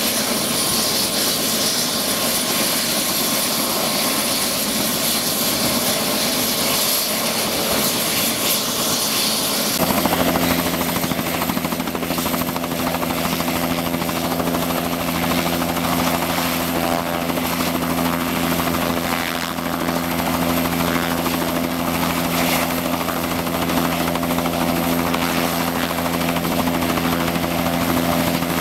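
Turbine medical helicopter running on the ground with its rotor turning: a steady engine whine and rushing hiss. About ten seconds in the sound changes suddenly to a lower, steadier hum.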